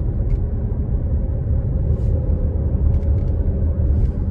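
Car cabin road noise from a moving car: a steady low rumble from tyres and engine, with a few faint ticks.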